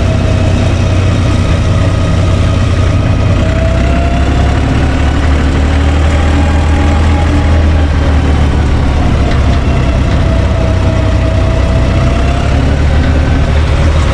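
UTB U445 DT tractor's three-cylinder diesel engine running at a steady pace while the tractor drives along, heard from inside the cab, with a faint whine that drifts slightly up and down in pitch.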